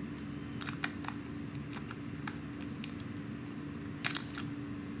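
Light clicks of a Jaguar key fob's metal emergency key blade being worked into its slot in the plastic fob: a few scattered ticks, then a louder cluster of clicks about four seconds in as the blade seats.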